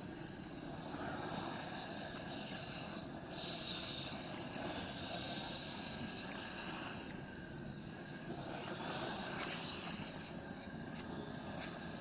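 Propane roofing torch burning with a steady hiss that swells and eases a little now and then, heating vinyl flooring to soften the glue beneath it.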